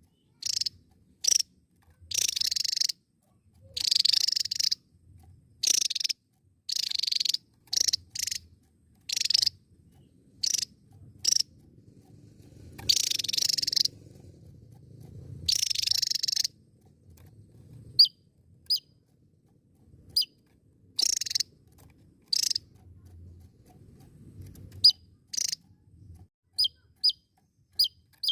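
Javan tesia singing: repeated bursts of rapid, high-pitched notes, each under a second to about a second long, with short gaps between them. After about 18 seconds the song turns to short, sharp single high notes.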